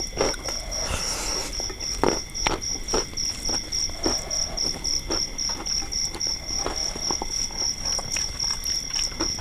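Crickets chirping in a steady, rapid, evenly pulsed high trill. Scattered soft clicks and smacks of close-up chewing and eating by hand sound over it.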